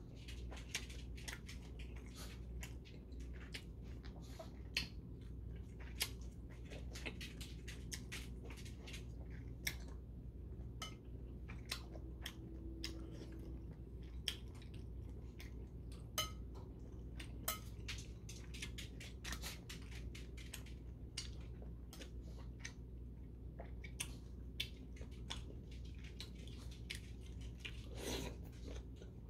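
Close-up chewing of spicy mixed noodles with sea snails and shiitake mushrooms: many small, irregular wet mouth clicks. A slurp of noodles near the end.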